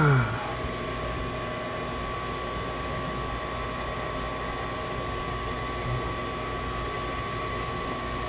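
Furnace draft inducer motor running steadily: a hum with a steady high-pitched whine. A brief loud sound falling in pitch opens it.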